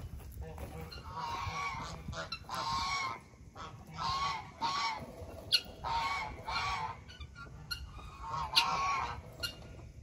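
Domestic geese honking repeatedly: a series of loud, harsh honks, roughly one a second.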